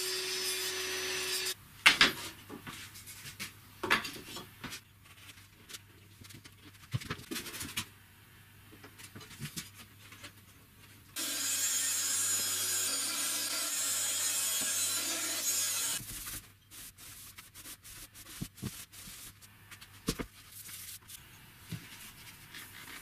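Woodworking in a workshop: a steady rubbing or sawing noise at the start that stops suddenly after about a second and a half. Then scattered knocks and taps of handling, a second steady rubbing stretch of about five seconds just after halfway, and more taps to the end.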